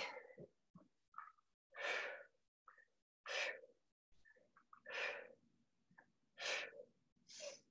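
A person breathing out hard in short, sharp puffs, about one every one and a half seconds: effortful breathing through a set of dumbbell lifts.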